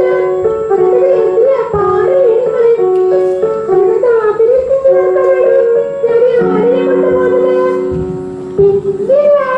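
A song: a high voice sings a wavering melody over stepped instrumental notes. A held low chord joins about six and a half seconds in and drops out near the end.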